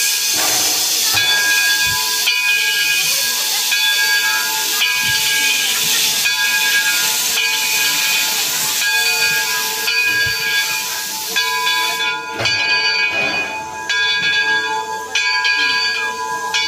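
Steam locomotive pulling away slowly, steam hissing in pulses from its open cylinder cocks over a steady chord of whistle-like tones. The hiss thins out about twelve seconds in while the tones carry on.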